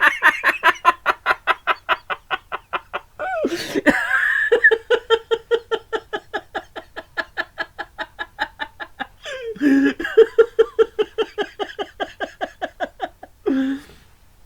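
A person laughing in long runs of fast, even, cackling 'ha-ha' pulses, about seven a second, broken three times by a gasping breath.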